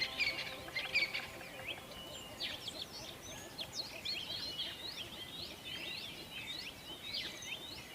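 Many small birds chirping and twittering at once, a dense run of quick, overlapping high chirps.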